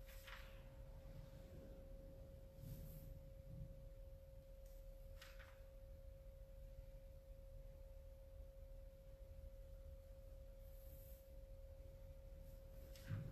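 Near silence: quiet room tone with a faint, steady single-pitched whine underneath, and two faint brief brushing sounds, one at the very start and one about five seconds in.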